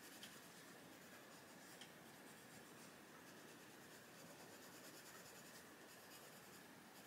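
Faint, steady scratching of a Castle Arts Gold coloured pencil shading on the paper of a colouring book, with a couple of light ticks in the first two seconds.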